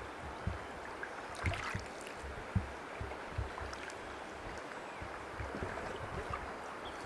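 A single-bladed paddle working through the water as a small boat is paddled along a stream, over a steady wash of moving water with irregular low thumps and a few faint clicks.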